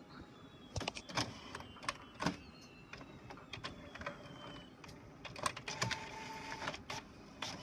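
HP Officejet all-in-one inkjet printer printing a page: its mechanism clicks and clacks over and over, while a thin motor whine slowly falls in pitch over the first few seconds, and a short steady hum comes in near the end.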